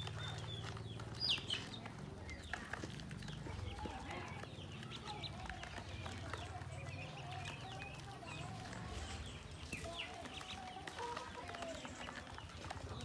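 A brood of ducklings peeping, many short, high, rising cheeps overlapping one another, over a low steady hum.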